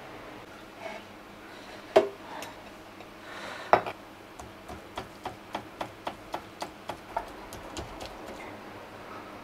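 Metal fork pricking the skin of boiled pork belly, a steady run of sharp ticks about three to four a second as the tines stab through to the board, the skin being pierced so it crisps when fried. Before that, two louder single knocks.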